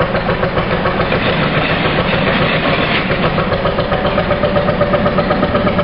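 Narrowboat diesel engine running steadily with an even rapid beat, working the boat as it pulls the top lock gate open on a line.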